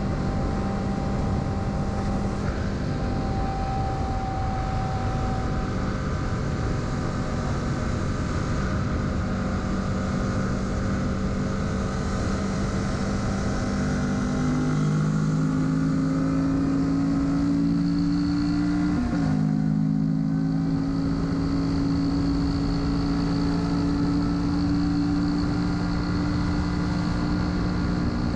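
Kawasaki Z650's parallel-twin engine running at steady road speed, with road and wind noise. Past the middle the revs climb a little, then the engine pitch dips sharply and picks up again.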